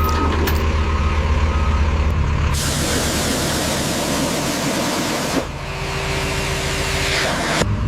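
A motor vehicle engine running steadily. A loud hiss joins it from about two and a half seconds in and lasts about three seconds.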